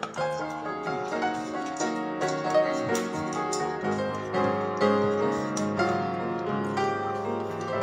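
Background piano music: a steady run of struck notes over sustained chords.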